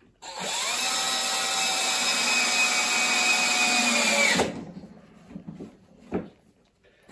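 Cordless drill running under load into a timber strut for about four seconds. Its motor whine rises as it spins up, holds steady, then cuts off and winds down. A few light knocks follow.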